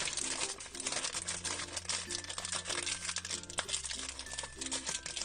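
Plastic and paper packaging crinkling and rustling as a Num Noms surprise toy package is unwrapped by hand, a dense run of crackles over a soft background music bed.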